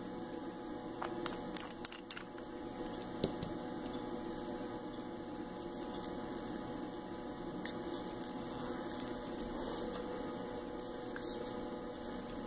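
Steady electrical hum with a cluster of small sharp clicks and taps about one to two seconds in and a few fainter ones later: a small stamping-polish bottle being handled while its stuck lid is worked off.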